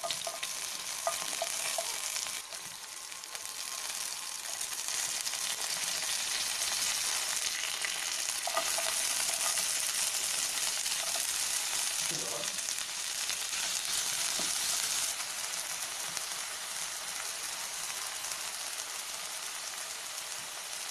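Hot oil sizzling in a nonstick pan as cumin seeds, green chillies and chopped onions fry, with a wooden spatula stirring and scraping now and then. The sizzle grows louder a few seconds in.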